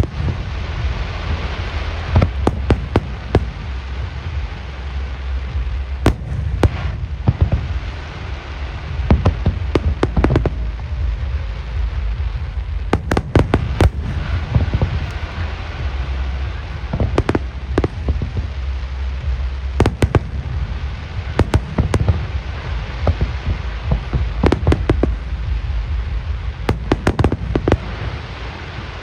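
Aerial firework shells bursting in a big display: many sharp bangs, often several in quick succession, over a steady low rumble.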